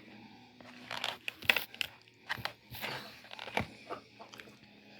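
Close-up eating sounds: crisp crunching and crackling as someone bites and tears into Popeyes fried chicken, a run of sharp, irregular snaps starting about a second in.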